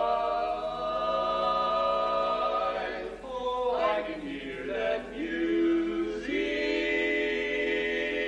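Barbershop quartet of four male voices singing a cappella in close harmony: a sustained chord, a short moving passage about three to five seconds in, then another held chord.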